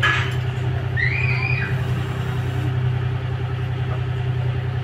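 Engine of a pile-driving rig running steadily with a low drone, with a short knock at the very start and a brief high squeal that rises and falls about a second in.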